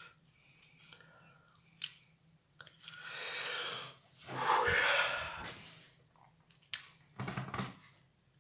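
A person eating: short wet mouth clicks of chewing, and a long noisy breath in and then out in the middle, the out-breath the loudest sound. Another short breathy burst comes near the end.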